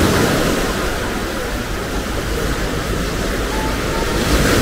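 Small waves breaking and washing up a sandy beach: a steady rushing that swells slightly near the start and again near the end.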